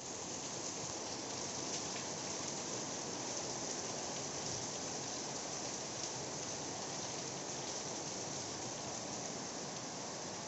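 Steady rain falling and pattering on surfaces, an even hiss with no let-up.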